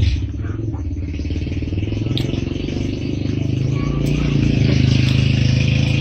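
An engine running steadily, its low hum getting a little louder and slightly higher about halfway through.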